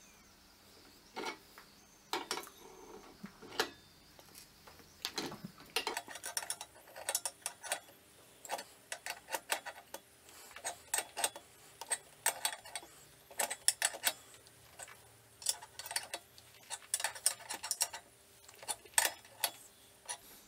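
Light metal clicks and clinks from a spanner turning the bolt of a ball joint separator as it presses a bicycle crank off its axle. The clicks are sparse at first and come thick and irregular from about six seconds in.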